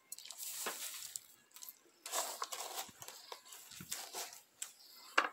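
Loose potting soil scooped and tipped from a coconut-shell scoop into a cement pot around a seedling's root ball, rustling and crunching in short irregular spells, with a sharp knock near the end.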